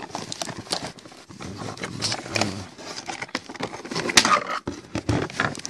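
Handling noise of small plastic toy pieces and a cardboard box: irregular clicks, scrapes and rustles as the parts are picked up and moved around.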